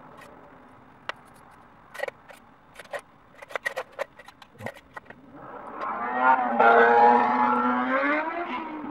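Small metal screws and parts clicking and clinking against each other and the wooden desktop as they are picked up and handled. About five seconds in, a loud buzzing drone of steady pitch comes in over them.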